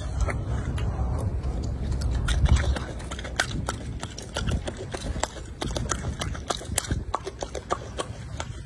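A golden snub-nosed monkey chewing grapes, its mouth making an irregular run of clicks and smacks several times a second.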